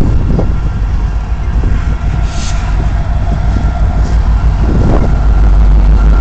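Loaded coal train passing close by: the last coal hoppers rumbling over the rails, then a rear-end EMD SD70ACe diesel-electric locomotive coming alongside, its engine a steady low drone from about five seconds in.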